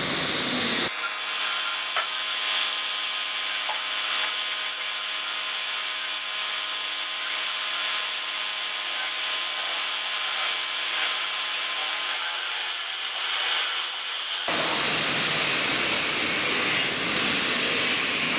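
Hobby mini lathe with a brushless motor, running and machining a small metal part, with a steady whine and the scraping of the cut. About fourteen seconds in, the cutting turns rougher and fuller.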